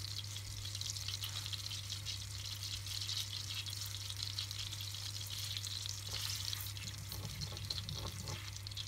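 Butter sizzling in a hot pan as it melts and foams, with a dense, fine crackle. Near the end a wooden spoon stirs through it, adding a soft scraping.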